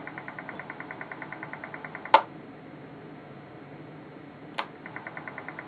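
Kacper 2 DDS transceiver keyed with its hand microphone: a fast, even ticking buzz runs, cuts off at a sharp click of the push-to-talk switch about two seconds in, and returns just after a second click near the end.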